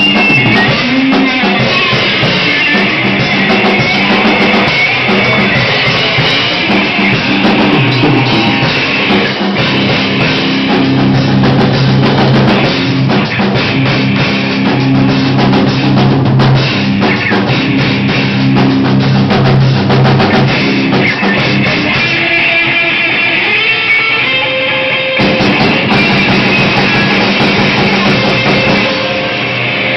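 Rock band playing live: full drum kit, electric guitar and bass going steadily, with the arrangement thinning out a little after about 22 seconds.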